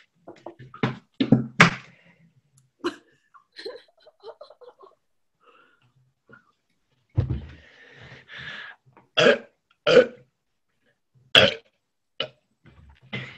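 A woman belching on purpose, a string of short burps. Several come in quick succession at first, then a lower, longer one, then a few louder ones in the second half.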